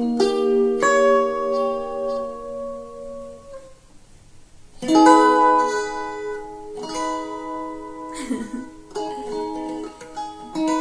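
Flight Pathfinder steel-strung electric ukulele played through a small NUX amplifier. A held chord rings out and fades over about three and a half seconds, then after a short lull a new chord is struck about five seconds in, followed by several more chords.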